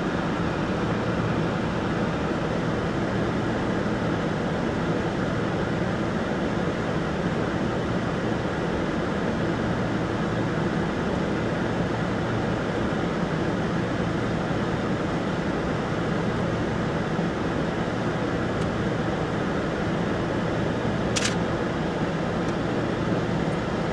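Steady mechanical hum inside the closed cabin of a Kombi minibus, with one sharp click near the end.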